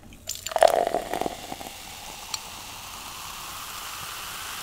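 Coke poured from a can into a tall glass: splashing and gurgling at first, then a steady fizzing hiss of foaming carbonation that grows slowly louder as the glass fills.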